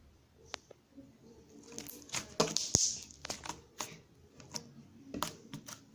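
Slime being worked by hand, giving a run of sticky clicks and small pops, busiest and loudest about halfway through.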